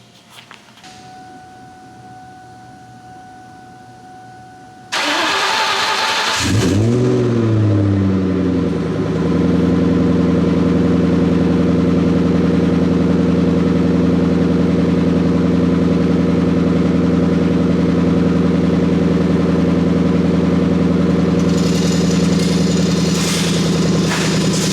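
A 2003–04 Mustang SVT Cobra's supercharged 4.6-litre V8 being started. A steady electronic tone sounds first, then the starter cranks for about a second and a half. The engine catches with a rev flare that rises and falls, then settles into a steady idle.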